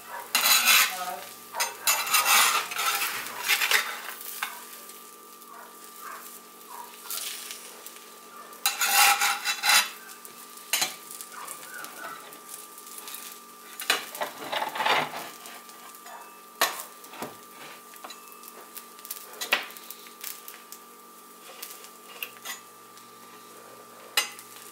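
Two eggs sizzling as they fry on a round griddle, with a metal spatula scraping under them and tapping on the griddle as they are flipped. Loud scraping spells come about a second in, around nine seconds and around fifteen seconds, with short sharp taps between.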